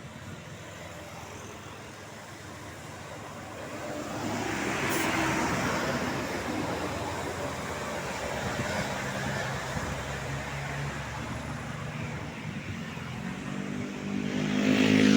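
Road traffic passing close by: one vehicle sweeps past about five seconds in, then a heavy engine, typical of a passing bus, grows loud near the end as it approaches.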